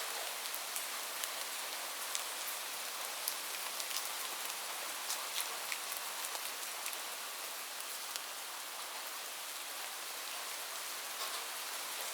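Steady rain falling, an even hiss with scattered distinct drops ticking on a surface.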